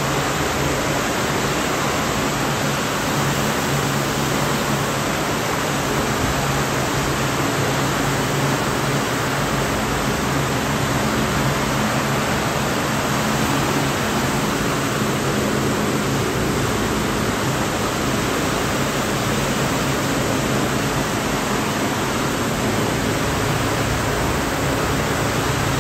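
Steady rush of air from the circulation fans and refrigeration of a walk-in dry-aging cooler, with a faint low motor hum underneath.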